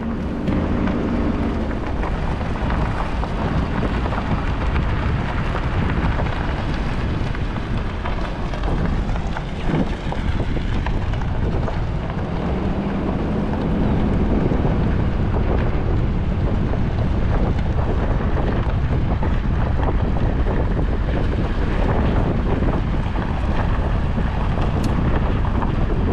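Heavy wind buffeting the microphone with a steady low rumble, a little louder about halfway through.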